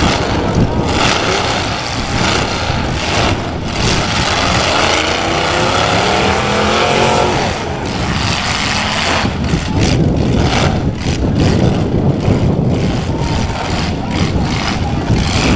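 Demolition derby cars' engines revving hard, loud and continuous. Their pitch rises and falls in the middle, then drops away abruptly.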